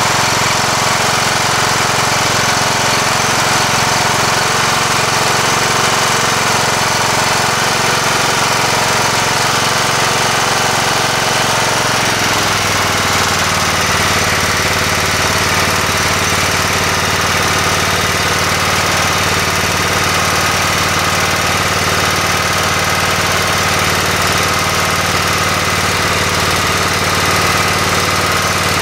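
John Deere LT150 lawn tractor's Kohler engine running steadily after its cylinder head gasket job. About twelve seconds in it drops to a lower, steady speed.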